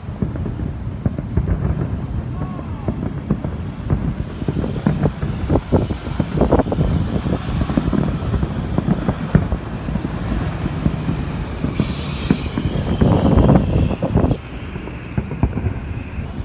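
Wind buffeting the microphone in a steady low rumble, with irregular thuds of distant fireworks.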